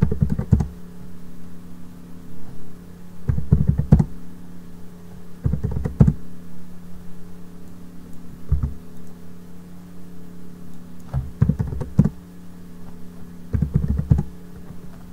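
Computer keyboard typing in short bursts of keystrokes, about six clusters a couple of seconds apart, over a steady low hum.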